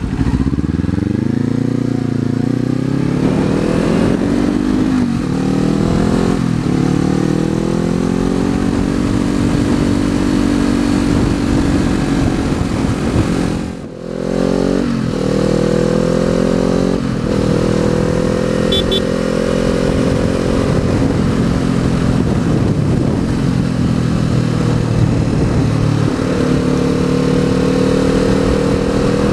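Kawasaki Z400 parallel-twin with an Akrapovic exhaust pulling away from a stop, revving up and shifting up through the gears, then holding a steady cruise. About halfway through the sound dips briefly, then the engine pulls up through two more gear changes and settles back into steady cruising.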